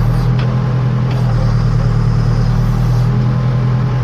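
Case 580 Super K backhoe's four-cylinder diesel engine running at a steady speed.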